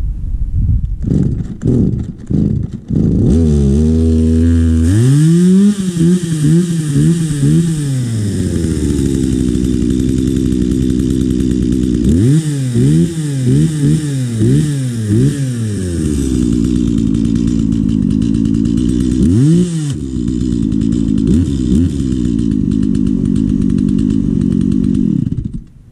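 Stihl MS 170 two-stroke chainsaw pull-started with a few quick pulls, catching about three seconds in. It then idles between several short bursts of revving, a test run of its just-repaired trigger, and cuts out near the end.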